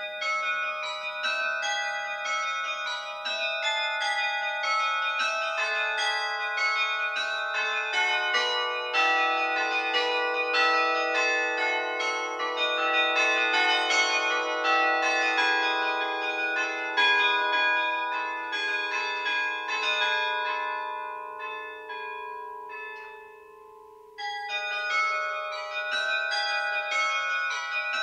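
Carillon bells played from the baton keyboard: many struck notes and chords ringing on and overlapping. The sound thins and dies away from about 20 seconds in, then playing starts again sharply about 24 seconds in.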